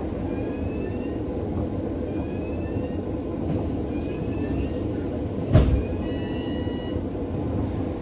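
Double-decker bus riding along: a steady engine and road rumble, with a faint short rising squeak repeating about once a second and one sharp heavy thump about five and a half seconds in.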